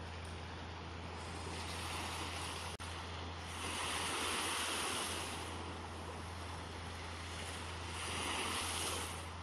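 Small waves washing up on a sandy shore, a steady surf hiss that swells louder twice, about four seconds in and again near the end.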